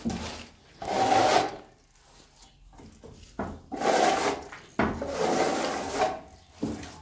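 A hand plastering trowel scraping wet plaster across a wall in about three long sweeping strokes, each a rasping rub with short pauses between.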